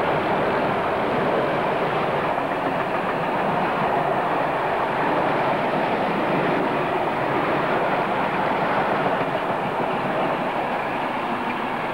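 Italian State Railways freight train's covered goods wagons rolling past: a steady noise of wheels running on the rails, easing slightly near the end.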